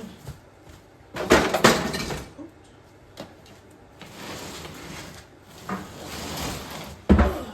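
Rummaging through a storage container: objects clatter and clink, with a burst of loud knocks about a second in, rustling after, and another sharp knock near the end.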